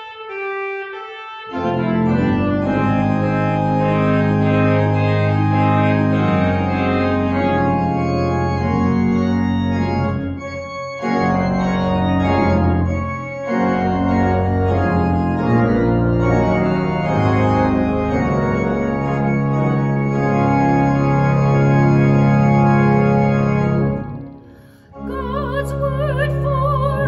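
Organ playing full, held chords with a strong bass line, pausing briefly near the end; a singing voice with a wide vibrato then comes in over the organ.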